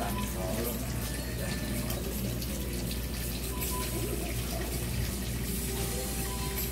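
Water running in a pedicure chair's foot basin, a steady rushing sound.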